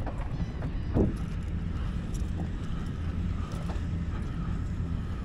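Boat motor running steadily with a low rumble, with wind on the microphone.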